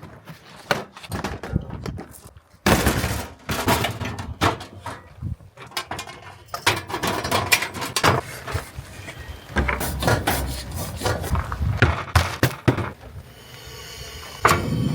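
Irregular knocks, clunks and rustling, as of cooking gear and supplies being handled and set down. A steadier hum comes in near the end.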